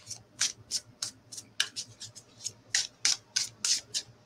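Oracle cards being shuffled by hand: a run of short swishes of card against card, about three a second.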